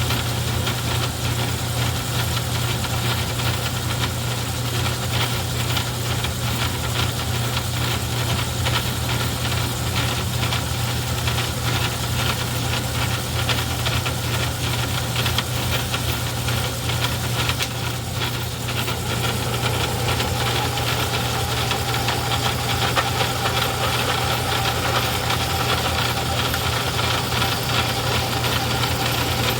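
Craftsman 109 metal lathe running under power while turning a centering cone: a steady motor hum with a fast, continuous clatter from the drive. A steady higher whine joins about two-thirds of the way through.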